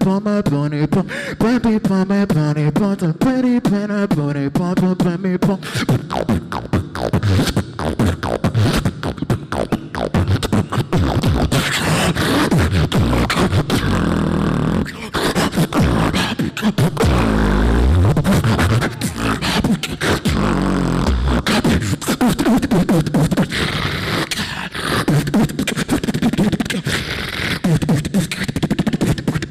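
Solo beatboxing into a handheld microphone: a wavering hummed melody for the first several seconds, then fast, dense percussive drum sounds with very deep bass drops around the middle.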